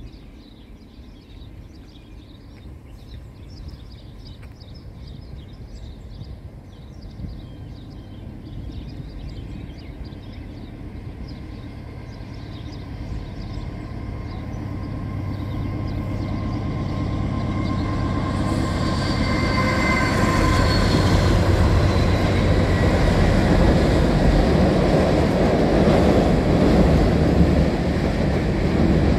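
Norfolk Southern freight train with three diesel locomotives approaching and passing: a low engine rumble grows steadily louder, with a brief high-pitched whine about twenty seconds in. Near the end come the steady rumble and rattle of the freight cars rolling over the steel girder bridge.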